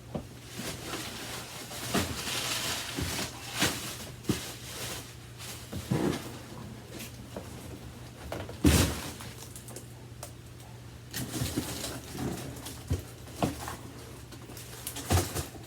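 Handling noises of tidying up by hand: scattered knocks, clatter and short rustles, with one louder thump a little past halfway, over a steady low hum.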